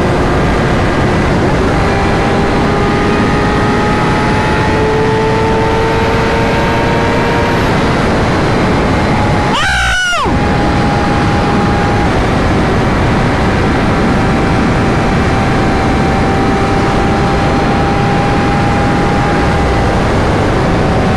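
Sportbike engine running at road speed under steady wind rush, its pitch creeping slowly upward. About ten seconds in there is a quick gear shift: a brief dip and recovery, after which the engine runs a little lower.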